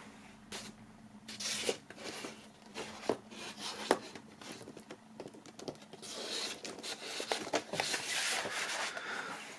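A vinyl record in its black paper sleeve being slid into the pocket of a cardboard gatefold jacket: paper and card rubbing and scraping, with scattered light taps, and a longer sliding rustle in the second half.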